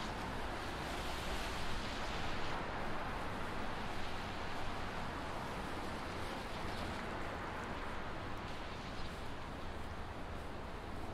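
Steady downtown city street ambience: an even wash of traffic and street noise with no distinct events.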